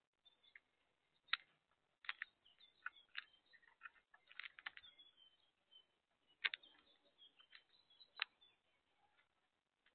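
Irregular sharp clicks and taps of doves' beaks pecking seed from a plastic tub on a wooden platform feeder, a few of them louder than the rest.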